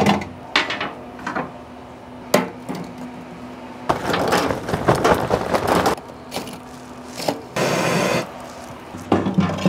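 Lumps of lump charcoal clattering and cracking as they are tipped into a steel grill firebox, dense for about two seconds in the middle, between knocks of the metal grate being handled. Near the end a propane torch hisses briefly as it lights the coals.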